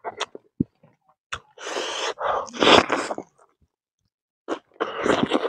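Close-up eating sounds: biting and chewing roasted meat by mouth, with a few short clicks, then loud stretches of chewing about a second and a half in and again near the end.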